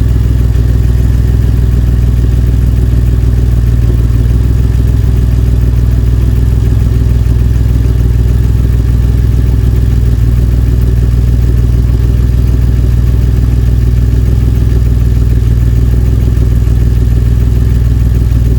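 DeLorean DMC-12's freshly swapped V6 engine idling steadily, running rich on its fuel mixture.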